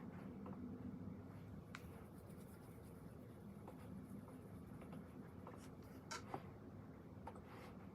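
Quiet pen writing on paper: faint scratching with small clicks scattered through, over a steady low hum in a small room.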